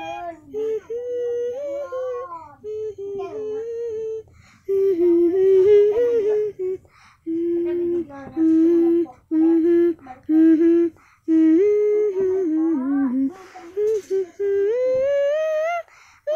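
A young child's voice humming and vocalizing without words in short phrases, the pitch stepping and gliding up and down, with brief breaks between phrases.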